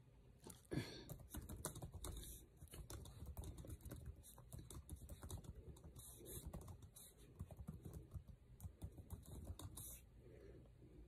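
Typing on a keyboard: a fast, irregular run of faint key clicks that stops near the end.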